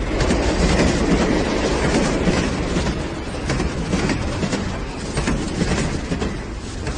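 Indian Railways passenger train running on a curving track, heard from an open coach window: steady wheel-on-rail running noise with a clickety-clack of clicks over the rail joints.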